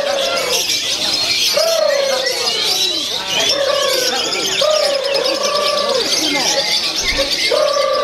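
Lovebirds' continuous, rapid, high-pitched chattering song, the long unbroken 'konslet' song. Lower, drawn-out arched calls repeat about once a second underneath.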